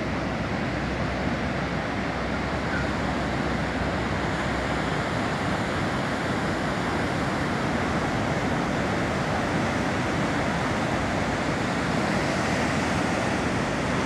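Rough sea surf breaking and washing up a flat sandy beach: a steady rush of waves.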